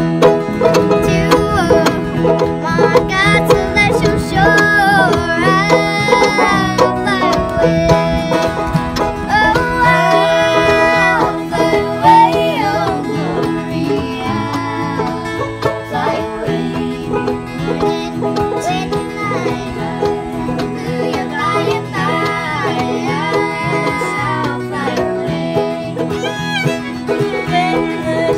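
Bluegrass-style acoustic music: a banjo, a fiddle and a guitar playing, with girls singing.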